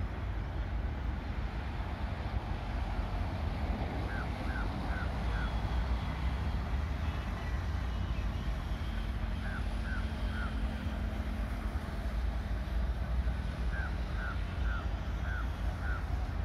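Low, steady rumble of twin ALCO WDG3A diesel locomotives (16-cylinder ALCO 251 engines) approaching from far down the line. Three short runs of quick high chirps sound over it.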